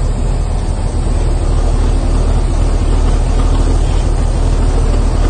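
Old cable-operated shovel's engine running steadily under load, a deep even drone.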